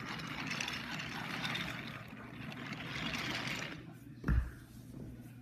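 Rattling, rolling noise of a wooden toy train pushed by hand along a wooden track, which stops a little before four seconds in. A single low thump follows.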